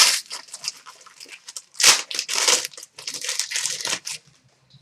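A trading card pack being torn open and its wrapper crinkled and handled, in a series of irregular rustling, crinkling bursts, the loudest about two seconds in.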